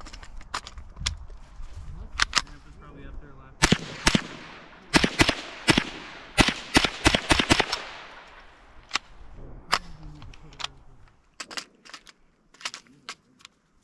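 Ruger 10/22 Takedown semi-automatic .22 rifle firing a quick string of about a dozen sharp shots, starting about four seconds in. Fainter single cracks come before and after the string.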